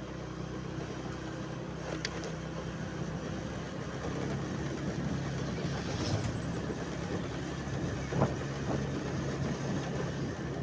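A motor vehicle engine running steadily, with a few short clicks and a brief knock about eight seconds in.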